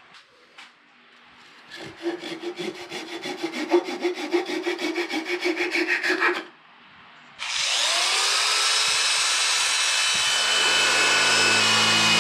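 Hand saw cutting through the green wild cherry tenon of a goblet in rapid, even strokes. After a short pause, an electric drill starts up and runs steadily with a sanding disc pressed against the wood.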